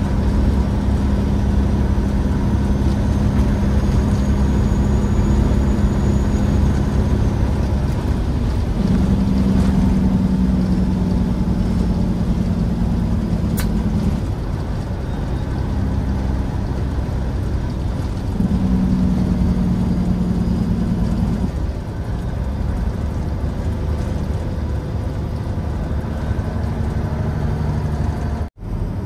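Diesel engine and road noise of a 1998 Peterbilt 379 tractor, heard inside the cab while driving: a steady low drone whose pitch rises a little twice, for a few seconds each time.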